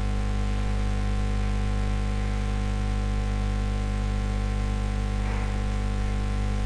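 Steady electrical mains hum with a stack of low even tones and a faint hiss above it, picked up by the recording chain.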